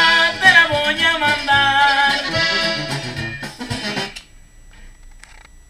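Corrido music led by accordion, which stops suddenly about four seconds in, leaving only faint room sound.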